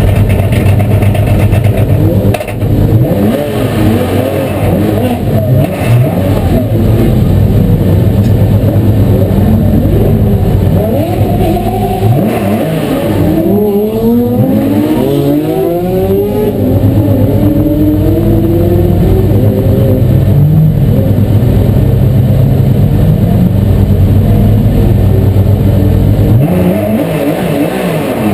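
Porsche Carrera Cup race car's flat-six engine heard from inside the stripped cockpit, running loudly and steadily at low revs. Revs are blipped up and down over and over, most busily around the middle and again near the end.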